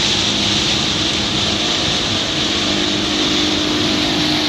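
Motorboat engine running steadily under way, a constant low hum under a steady high hiss.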